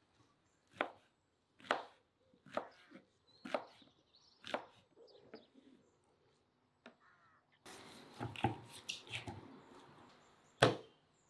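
Kitchen knife dicing peeled eggplant on a wooden cutting board, with five sharp cuts about one a second. Later, hands pull and tear raw lamb meat on a wooden board, a rougher rustling sound with low thuds, ending in one loud knock on the board.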